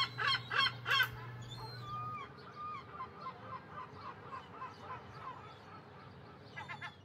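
Seagulls calling: a quick run of loud calls about three a second in the first second, then fainter scattered calls that fade away, and another short quick run near the end.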